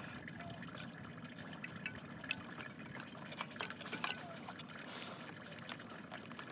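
Faint, steady trickle of engine coolant draining, with scattered light clicks and taps of a wrench on engine parts.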